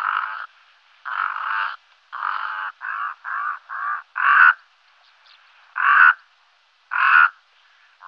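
Brown-necked raven calling: a series of about nine rough, raspy calls, each under a second long, with a quick run of three short calls near the middle and pauses of about a second between the later ones.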